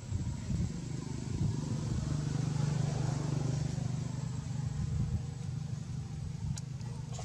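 Low engine rumble of a motor vehicle passing, swelling to its loudest around the middle and easing off, with two short clicks near the end.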